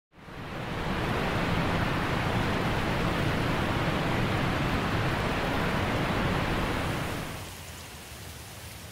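A steady rushing noise that swells in over the first second, then drops to a quieter hiss a little past seven seconds in.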